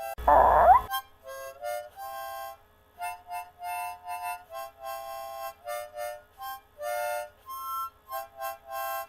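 Harmonica playing a melody in short separate notes. Near the start, a brief loud sound effect with a rising pitch cuts across the music.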